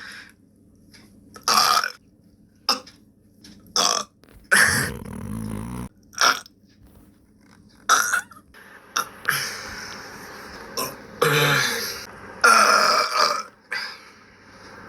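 A person letting out a stream of burps, about a dozen in a row, some short and some long and drawn out.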